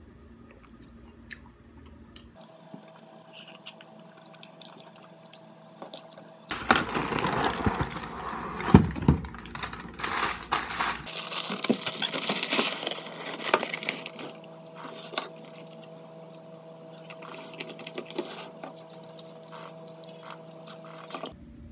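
Foil cereal bag crinkling as cornflakes are shaken out into a ceramic mug, loud and rustling from about six to fourteen seconds in. After that, a few light clicks of a metal spoon in the mug over a steady low hum.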